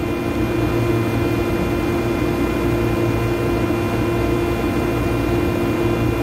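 Steady mechanical drone with a constant low hum, typical of rooftop HVAC equipment running.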